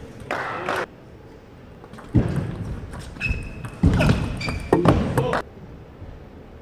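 Table tennis rally: sharp ball strikes on bats and table mixed with players' footwork and brief shoe squeaks on the court floor, in clusters, echoing in a large hall.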